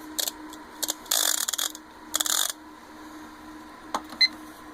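Screwdriver driving screws back into a PS4 during reassembly: three short bursts of ratcheting clicks in the first two and a half seconds, then a couple of small clicks near the end.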